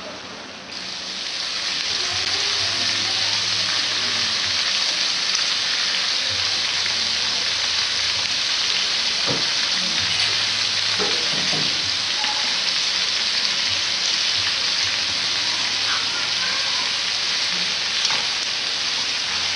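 Sliced pork tongue frying in hot oil in a wok: a steady, loud sizzle that starts suddenly about a second in, with the tongs knocking against the pan a few times around the middle.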